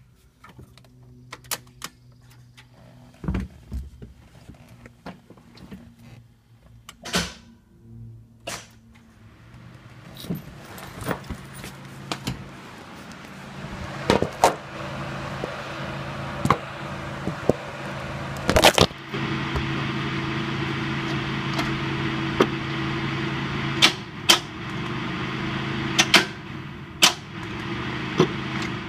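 A 1994 Mazda Miata that won't start after new fuel injectors, making a steady mechanical hum with scattered sharp clicks and knocks. The hum grows louder from about a third of the way in, without the engine catching and running.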